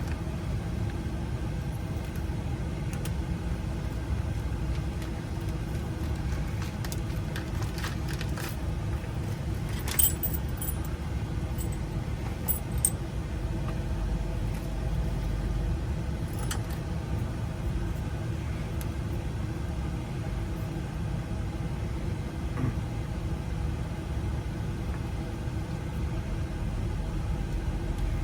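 Vehicle engine idling as a steady low rumble, with scattered metallic clicks and jingles of keys and small lock parts being handled, strongest around a third and half of the way through.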